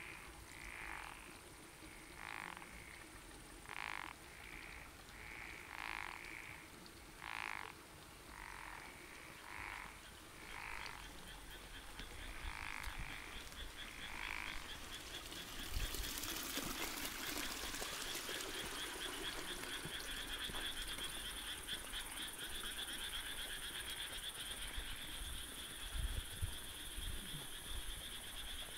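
Frogs calling in a summer night chorus: separate croaks about once a second for the first half, then a steady high-pitched trill takes over. A brief rush of noise sounds about sixteen seconds in.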